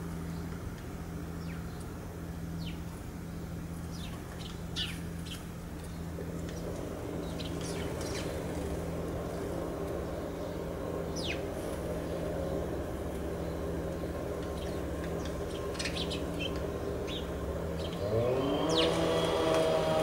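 House sparrows chirping: short, high, scattered chirps over a steady low hum. Music comes in near the end.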